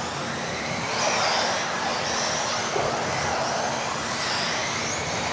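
Several electric 1:10 RC off-road buggies racing on a carpet track. Their motors whine high, each pitch rising and falling as the cars speed up and slow down, over a steady rushing noise.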